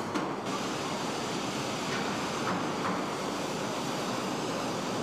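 Steady, dense mechanical noise of a car-body assembly line, with a few faint knocks.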